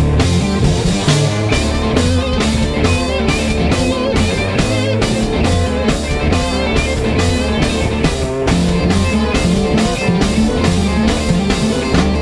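Live rock band playing an instrumental passage: electric guitar lines over a steady drum-kit beat and a moving bass line.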